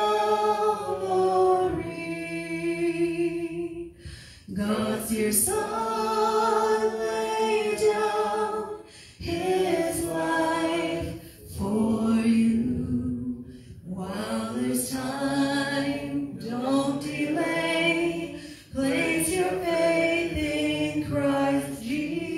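A woman singing a gospel song solo into a microphone, in long held phrases with short breaks for breath about every four to five seconds.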